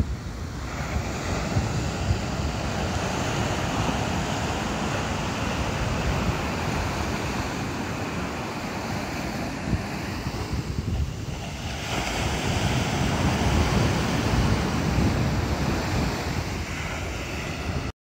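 Ocean surf breaking and washing up a sandy beach, a steady rush that eases for a moment past the middle and swells louder again towards the end, with wind rumbling on the microphone.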